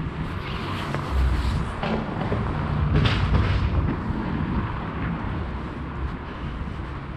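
Street ambience: a low rumble of traffic with wind buffeting the microphone, swelling about a second in and again around three seconds.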